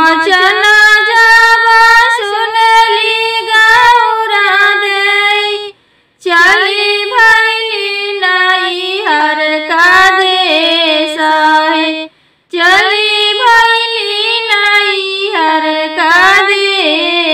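A high female voice singing a Bhojpuri devotional song to Shiva, unaccompanied, in long melodic phrases with two brief breaks for breath, about six and twelve seconds in.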